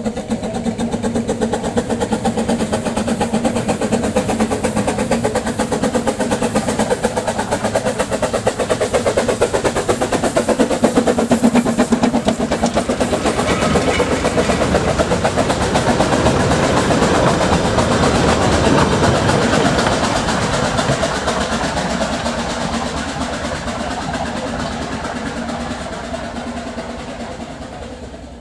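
Light-railway locomotive hauling a train of coaches, running steadily; it grows louder through the middle and fades away near the end.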